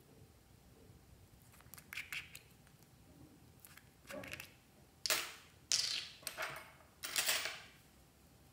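Plastic contact lens case having its screw-on lids twisted open: a few small plastic clicks, then four short rasping turns of the threads in quick succession near the end.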